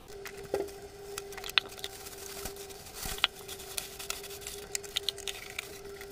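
Thin plastic garbage bag rustling and crinkling in irregular small clicks as it is fitted into a small plastic wastebasket. A faint steady hum runs underneath.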